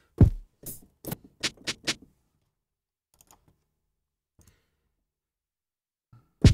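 Software drum kit (Dracula Eastwood Kit) played from a MIDI keyboard: a kick drum hit, then a quick run of snare and hi-hat hits over the next couple of seconds. After a pause, another kick lands right at the end.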